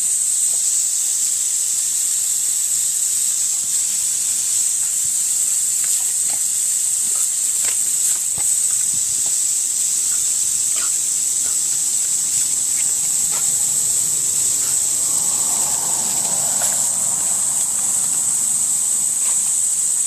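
Steady hiss of water jetting from a garden hose spray nozzle, with scattered faint ticks of spray striking; about three-quarters of the way through, a dog briefly makes a low sound as it snaps at the water.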